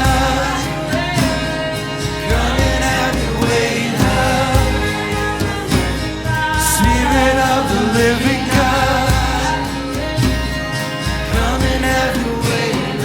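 Live worship music: a singer's voice gliding through long phrases over sustained instrumental chords and a pulsing bass line.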